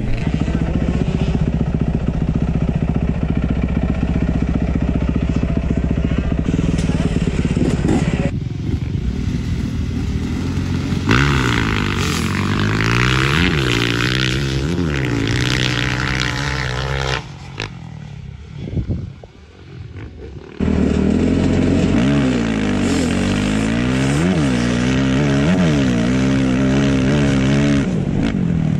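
Motocross bike engines. They run steadily at first. From about a third of the way in, bikes rev up and down repeatedly as they ride the track, with a brief quieter lull past the middle. Near the end come close-up engine revs rising and falling through the gears from a bike being ridden, the rider's 2005 Yamaha YZ450F.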